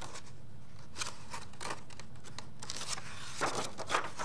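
A page of a hardcover picture book being lifted and turned by hand: paper rustling and crackling in short scattered bursts, loudest near the end, over a steady low hum.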